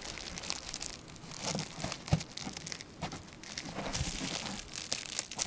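Saran-type plastic cling wrap crinkling and crackling in irregular snaps as it is worked and pulled off a wet-painted plastic container.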